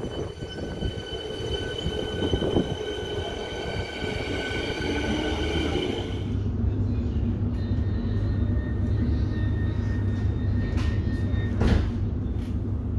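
Siemens Nexas electric train: first a whine of several steady high tones over rumble. After a cut about six seconds in, a steady low hum as the train stands at the platform, heard from inside the carriage, with a sharp knock near the end.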